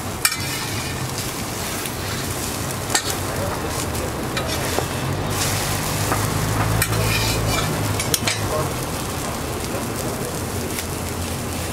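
Egg omelette sizzling on a flat-top steel griddle with a steady hiss, while a metal spatula scrapes and taps against the griddle a few times.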